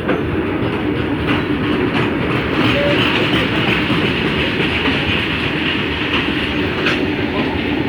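A long train rolling past close by, its wheels clacking over the rail joints under a steady rumble of the passing wagons.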